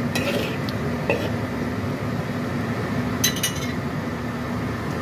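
Metal ladle clinking and scraping against a wok a few times, with a quick run of clinks about three seconds in, over a steady hiss from the stove and the simmering pan.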